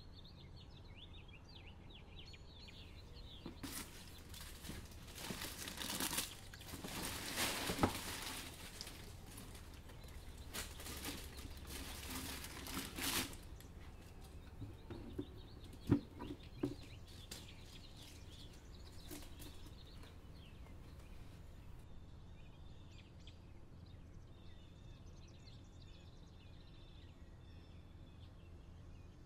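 Paper packaging rustling and crinkling as sneakers are unboxed, followed by a few light knocks as the shoes are handled. Faint birds chirp in the background.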